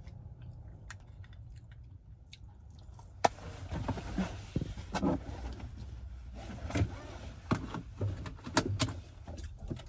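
Low steady rumble of a car, with a sharp click about three seconds in followed by scattered clicks, knocks and rattles of things being handled.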